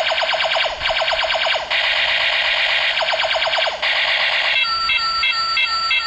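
Toy blaster gun playing its electronic sound effects: runs of rapid falling laser zaps alternating with a steady electronic buzz. About three-quarters of the way through, this gives way to its repeating beep pattern of about three beeps a second.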